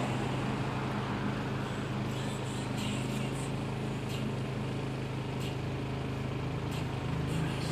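Steady low hum of a running engine over urban street noise, with a few faint light ticks.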